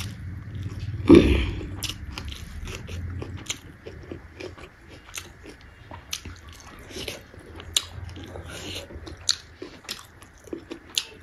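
A person eating close to the microphone: chewing and crunching food, with one loud bite about a second in followed by irregular crunchy mouth clicks.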